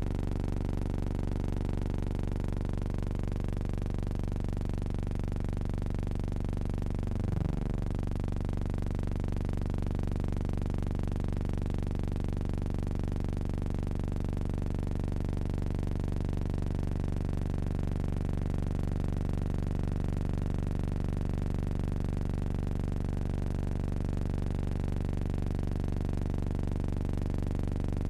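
Steady low electrical hum with many even overtones. Its pitch slides briefly downward about seven seconds in, and it wavers again near the end.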